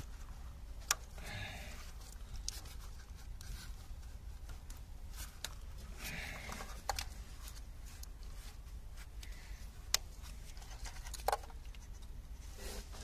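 Gloved hands working on a car engine's ignition coils and connectors: scattered sharp plastic clicks and knocks with short bouts of rustling and scraping.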